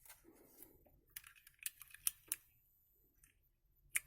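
A few faint, sharp plastic clicks at irregular intervals, the clearest near the middle and one near the end, as a keycap is fitted onto a switch of a T-Dagger mechanical keyboard.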